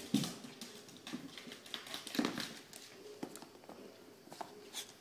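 Corgi's claws clicking and pattering on a hardwood floor as it trots, a run of irregular light taps.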